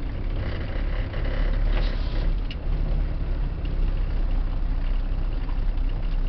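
Car driving on a rough dirt road, heard from inside the cabin: a steady low engine and road rumble, with a few faint knocks and rattles.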